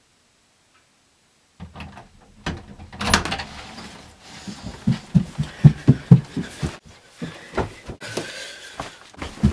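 A door unlatching and opening about three seconds in, followed by a run of heavy thuds and scrapes in a small room.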